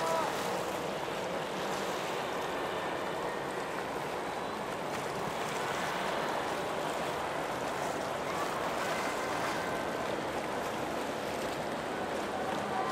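Steady wash of wind and sea waves.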